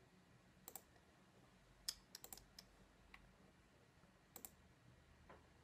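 Near silence broken by scattered faint clicks of a computer mouse, about a dozen, some in quick pairs, as a web page is scrolled.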